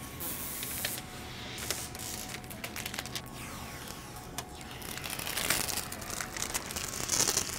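Protective plastic film being peeled off a TV's bezel and screen, crackling and hissing in several pulls, with the loudest peels about five and seven seconds in.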